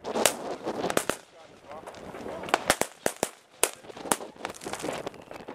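Firecrackers and fireworks going off, a dozen or so sharp bangs at irregular intervals, some in quick pairs, with a light crackle after a few of them.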